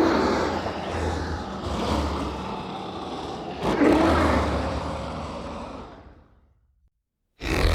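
Designed T-Rex roar sound effect: a long, deep roar that opens loud, surges again about four seconds in, then fades away. A short silence follows, and the next roar begins right at the end.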